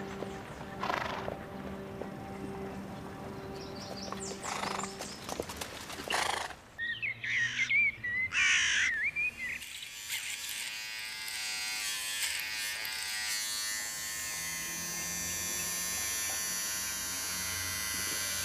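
Handheld electric shaver buzzing steadily against the chin, starting about halfway through. Before it, over background music, there are a few seconds of chirping bird calls.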